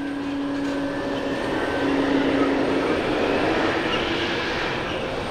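Jet engines of a Boeing 777-300 airliner running as it rolls on the ground, a steady rushing noise with a low hum that steps down in pitch over the first few seconds.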